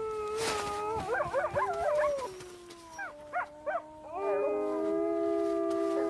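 A pack of grey wolves howling in chorus, several voices at different pitches overlapping. The first half has short wavering, quavering calls; from about four seconds in, several long steady howls are held together.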